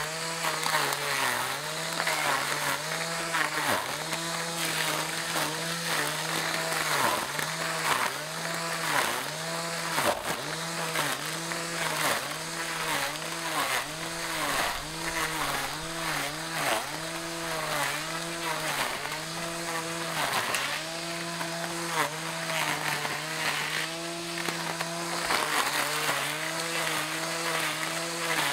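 Elecicopo 21V cordless string trimmer's electric motor whining as its plastic blades cut tall grass. The pitch dips and recovers about once a second as the grass loads the head, over the swishing of grass being cut.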